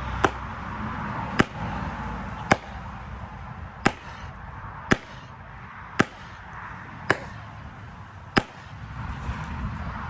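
Eight sharp hammer blows on a felling wedge driven into the cut of a tree, struck in a steady rhythm about once a second.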